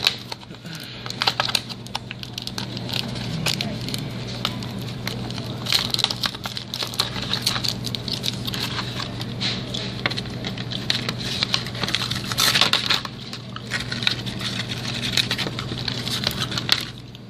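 Plastic blister pack being handled and pulled open by hand: a continuous run of irregular crinkling, crackling and clicking plastic, over a steady low hum.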